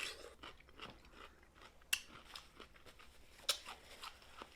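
Snow crab legs being cracked and eaten: scattered short shell cracks and mouth clicks, the two sharpest snaps about two seconds in and three and a half seconds in, with soft chewing between them.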